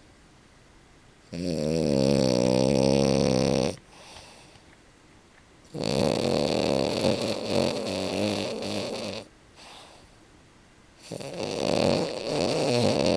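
A French bulldog snoring loudly in its sleep: three long, rattling snores of about two to three seconds each, with quiet pauses between them.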